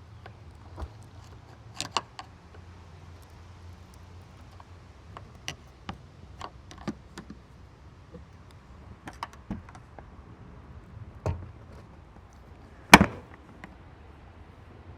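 Scattered light clicks and taps of hands and tools working on a car's plastic bumper and trim, with one sharp, much louder knock about thirteen seconds in.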